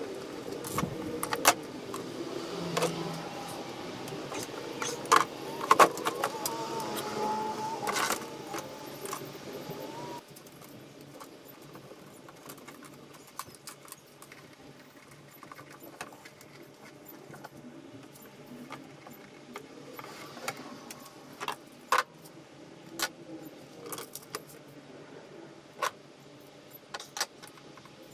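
Irregular sharp clicks and light rattles of electrical wires, connectors and small tools being handled while stereo wiring is hooked up. For about the first ten seconds a louder background noise with a wavering tone runs underneath, then drops away.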